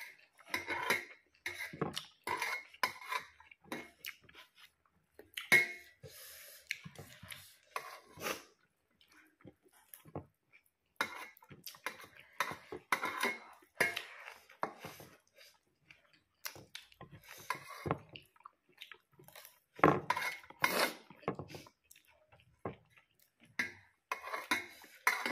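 Clinks and scrapes of fingers on a ceramic plate as rice and curry are mixed and scooped up by hand, coming in irregular short bursts, with eating sounds between them.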